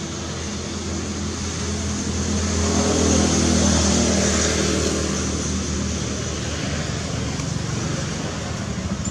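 A motor vehicle's engine passing by with a steady low hum, growing louder to a peak about three to four seconds in, then slowly fading.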